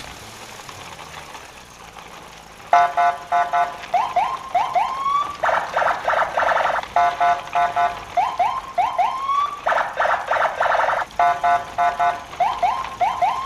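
Electronic car-alarm sound starting about three seconds in and cycling three times through its tones: rapid beeping pulses, a run of rising chirps, then a fast warble.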